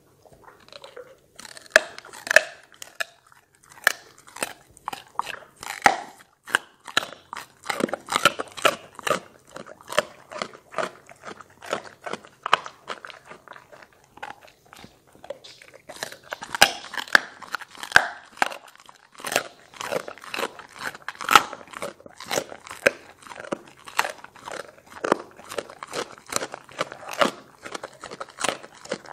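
A dog chewing a piece of vegetable, a long run of rapid crisp crunches with a short pause about halfway through.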